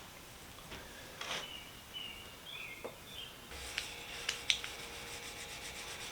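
Faint hand rubbing and scraping on a restored tool part, with short squeaks about two to three seconds in and a few sharp light clicks in the second half.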